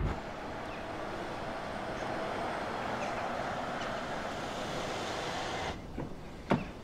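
Steady rushing road noise of cars driving along an asphalt road, swelling slightly as they approach and then easing, cutting off near the end. Two short sharp clicks follow.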